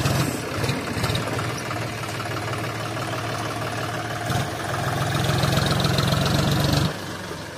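John Deere 5050D tractor's three-cylinder diesel engine running as it pulls a trailer slowly forward. About four and a half seconds in, the engine is throttled up and runs louder for a little over two seconds, then drops back abruptly.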